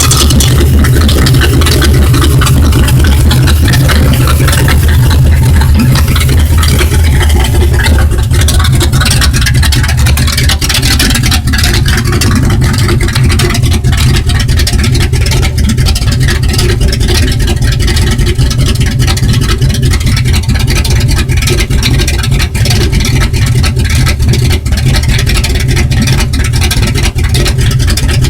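1968 Ford Galaxie engine running steadily, loud and close, with a deep low pulsing beat; it is a little brighter and louder for the first several seconds, then settles.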